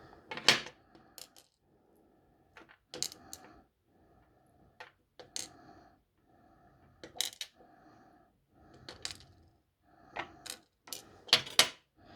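Small metal lock pins and parts from a disassembled pin-tumbler lock clicking and clinking as they are handled and set down in a pinning tray, about nine sharp irregular clicks with softer rustling between them and a cluster of the loudest clicks near the end.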